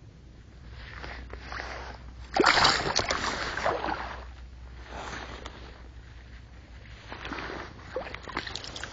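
Water splashing and sloshing in irregular bursts, the loudest starting suddenly about two and a half seconds in: a brown trout being let go into the stream.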